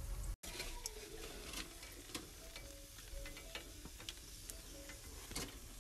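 Faint sizzling and crackling of freshly grilled minced chicken kababs, with scattered sharp clicks. The sound cuts out for a moment just under half a second in.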